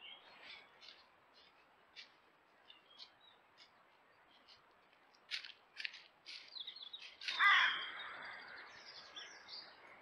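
Roe deer footsteps crunching and rustling in dry leaf litter, a run of short sharp ticks that grows louder as the deer passes close to the trail camera. About seven seconds in comes a single loud, harsh call that fades over about a second.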